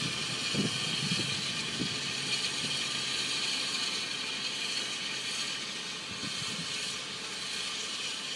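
Santa Fe #3751, a 4-8-4 steam locomotive, hissing steam steadily, with a few low knocks, most of them in the first two seconds.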